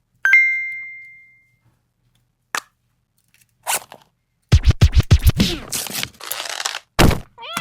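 A string of cartoon sound effects: a bright ringing ding at the start, a couple of clicks, then a quick run of thumps followed by scratchy noise like a record scratch, another thump and a short wobbly tone near the end.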